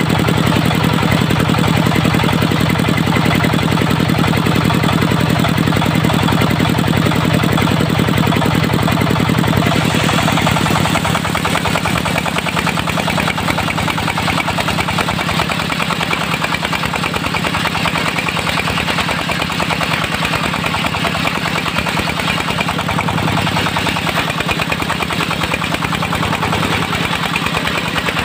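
Diesel engine of a mobile circular sawmill running steadily with a rapid, even firing beat; its sound shifts and drops slightly in level about ten seconds in.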